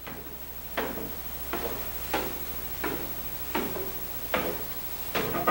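Footsteps descending a wooden staircase: about seven evenly paced hollow knocks of shoes on wooden treads, with a low steady hum beneath.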